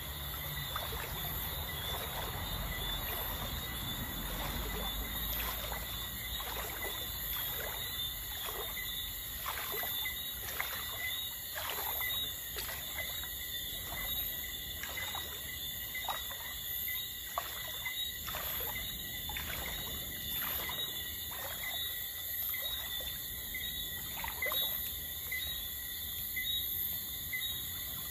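A steady chorus of night insects chirring over water, with a run of rhythmic water splashes less than a second apart through the middle of the stretch, as when someone wades through a river.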